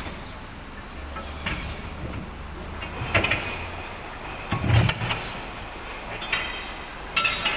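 Heavy steel parts knocking and clanking against each other, about four separate metallic knocks; the loudest, just before the five-second mark, has a deep thud. A low steady hum runs under the first half.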